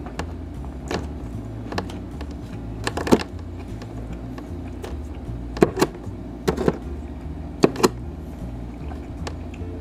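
Kitchen shears snipping through grilled squid: sharp cuts, a few early on and then several in quick pairs in the second half.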